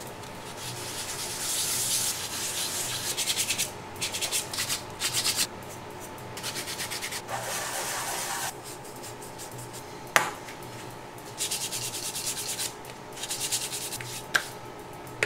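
A primed 3D-printed part rubbed by hand on fine-grit sandpaper, in runs of quick back-and-forth rasping strokes. Two sharp knocks fall between the runs; the louder comes about ten seconds in.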